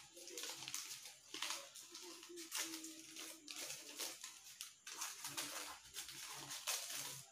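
Scissors cutting a sheet of paper: a series of short, crisp snips, roughly one a second, with light rustling of the paper between them.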